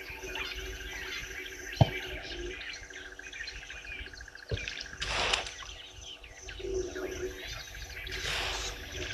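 Several birds chirping and calling in the bush, with two short bursts of noise about five and eight seconds in and a couple of sharp clicks.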